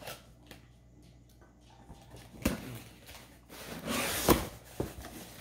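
Cardboard shipping box being opened: faint scraping and clicks as a blade runs along the taped seam, a sharp knock about halfway through, then a louder rustle as the cardboard flaps are pulled apart near the end, ending in a sharp snap.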